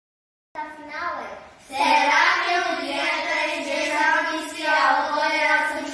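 Several children's voices together in a drawn-out, sing-song unison, starting about half a second in with a brief break before carrying on.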